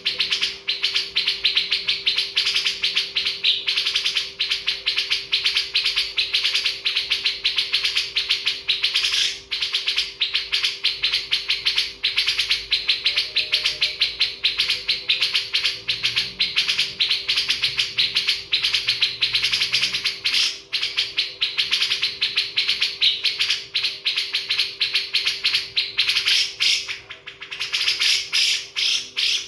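Many birds chirping rapidly and without pause, over a faint steady hum.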